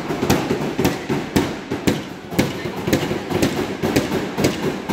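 Several hammers knocking nails into wooden wiring practice boards at once: a fast, uneven run of overlapping knocks, several a second.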